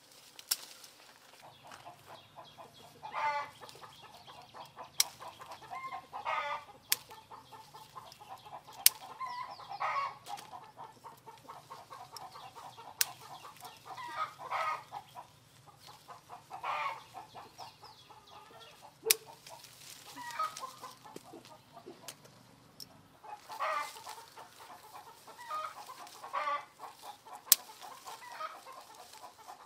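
Chickens clucking on and off, with a sharp snip every few seconds from hand shears cutting limes from their stems; the snips are the loudest sounds.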